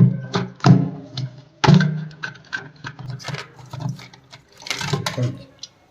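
Irregular clicks, knocks and rattles of hands working on a concealed wall-hung toilet cistern and its fittings, with an uneven low hum underneath.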